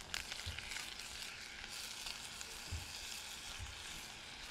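Butter melting and sizzling gently over softened onions in a stainless steel saucepan, stirred with a spatula, with a few soft knocks against the pan.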